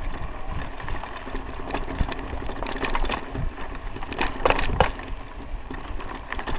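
Raleigh Ascent mountain bike rolling over a rough dirt road: a steady rumble of tyres on dirt, with scattered clicks and a few sharper rattles from the bike over bumps about halfway through.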